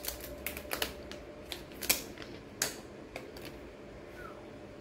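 Plastic protective film being peeled off a new smartphone, a quick run of sharp crackles and clicks that stops after about three and a half seconds.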